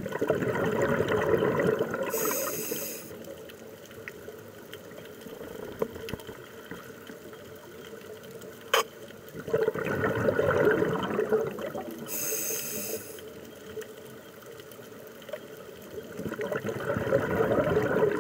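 A scuba diver breathing through a regulator underwater: a gurgling rush of exhaled bubbles three times, about eight seconds apart, with a short high hiss of the regulator after each, and a steady underwater hiss in between. One sharp click about halfway through.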